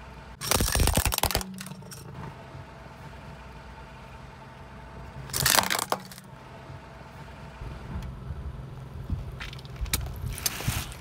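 Car tyre rolling over a plastic toy tambourine, which cracks and crunches loudly about half a second in; a second loud crunch comes about five and a half seconds in. A low, steady car engine hum runs underneath.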